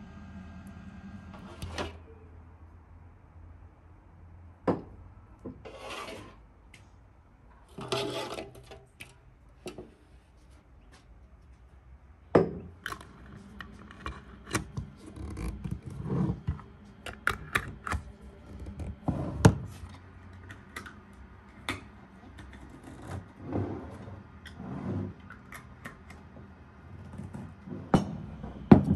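Glass jars of fruit preserves handled on a wooden table: twist-off lids screwed on with short scrapes and clicks, and jars knocked down on the tabletop. An irregular run of small knocks and rubs, busier in the second half.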